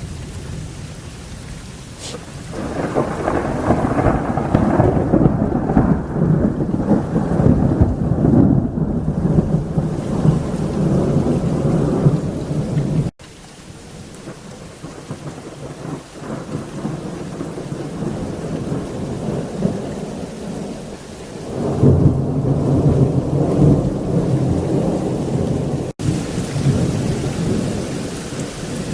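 Heavy rain falling steadily through a thunderstorm, with two long rolls of thunder. The first starts a few seconds in, rumbles for about ten seconds and cuts off suddenly. The second comes a little after the middle and lasts about four seconds.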